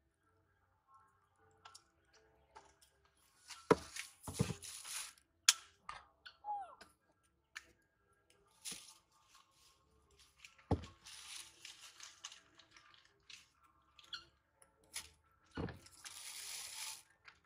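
A knife cutting and paring a small green vegetable held in the hand: short bursts of crunching and scraping, with a few sharp knocks in between.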